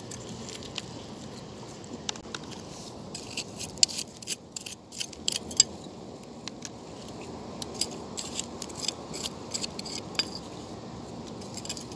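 Beach pebbles clicking and scraping against each other as a hand digs among them for clams, in irregular clusters of sharp clicks.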